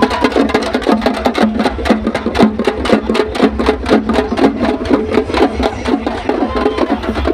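Fast, steady drumming by festival drums beaten with sticks, many strokes a second without a break.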